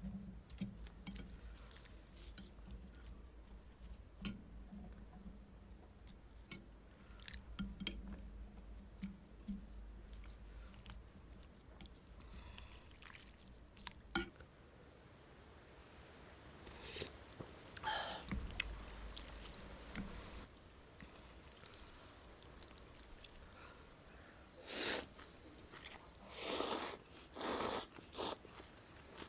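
Eating a bowl of bún bò beef noodle soup: spoon and chopsticks clicking against the bowl, with one sharp clink about 14 seconds in, then several loud slurps near the end.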